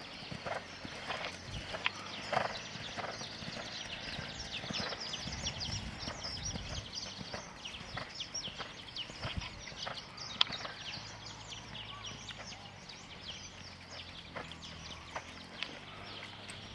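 Horse's hoofbeats as it trots under a rider on a sand arena: a run of soft, irregular hoof strikes.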